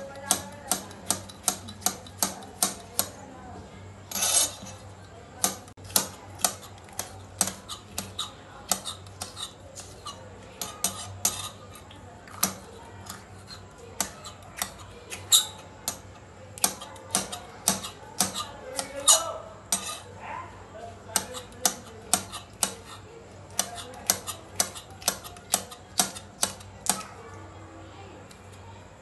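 Kitchen knife chopping tomato and green bell pepper straight on a stone countertop: runs of sharp knocks as the blade strikes the stone, about two to three a second, with short pauses between runs.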